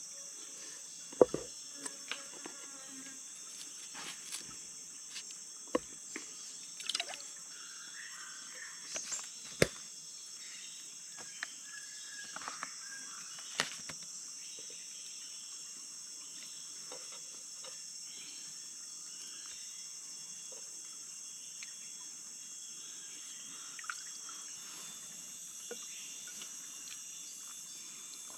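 Jungle ambience: a steady high-pitched drone with scattered short, sharp clicks and knocks, the loudest about a second in.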